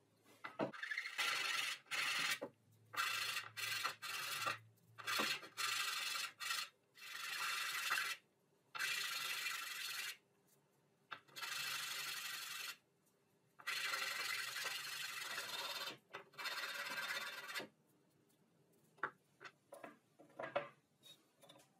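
Small wooden blocks rubbed by hand on sandpaper fixed to a flat board: a run of hissing sanding strokes, each lasting half a second to two seconds with short pauses between. Near the end, a few light knocks of wood on wood as the blocks are handled on the bench.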